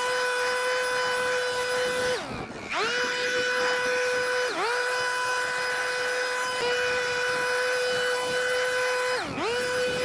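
Handheld leaf blower running with a steady high whine. Its speed dips and picks back up several times, most deeply about two seconds in.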